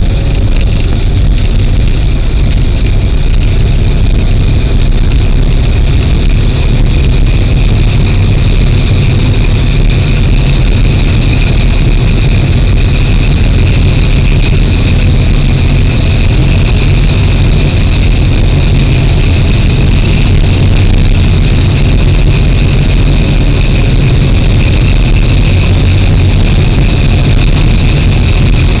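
A train running along the track, heard from inside the cab: a loud, steady low rumble with a steady high-pitched whine above it.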